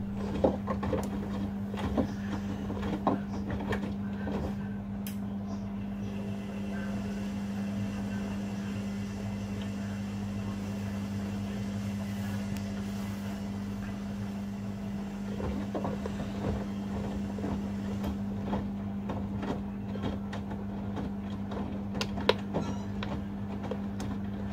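Washing machines running a rapid wash, a steady hum with scattered clicks and knocks near the start and again in the last third.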